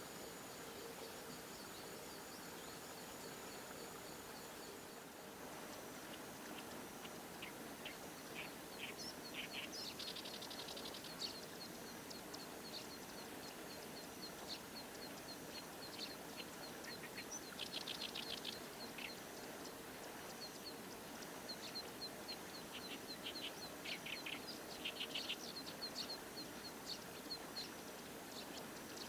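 Small songbirds calling: short high chirps repeated at intervals, with buzzy trilled twitters three times. A steady high-pitched insect trill runs at first and stops about five seconds in.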